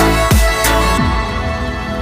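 Electronic dance music with no vocals. A kick drum with a falling pitch hits about three times a second, then drops out along with the bright top end about a second in, leaving sustained synth chords.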